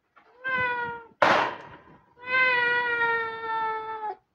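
A cat meowing: a short meow, then a sudden loud noisy burst, then one long drawn-out meow of about two seconds, its pitch sinking slightly.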